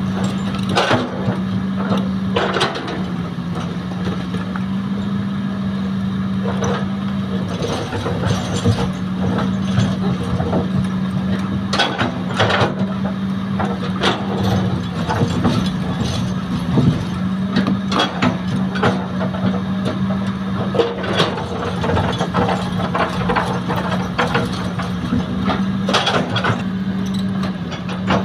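Heavy earthmoving machinery's diesel engine running at a steady speed, with irregular knocks and clanks of loading work over it. The engine note dips briefly twice.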